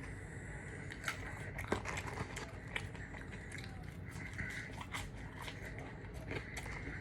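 Close-miked eating of a KFC meal: chewing and biting, with many small mouth clicks and crackles throughout.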